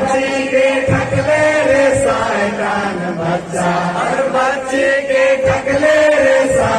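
Several voices singing together through a PA, with long held notes, and a few short thumps.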